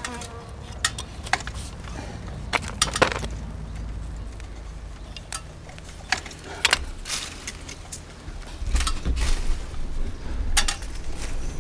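Metal hand trowel digging in stony soil: scattered scrapes and sharp clinks as the blade hits small stones. A low rumble builds in the last few seconds.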